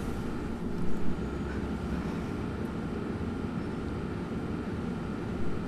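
Steady low rumble of background ambience with no distinct events.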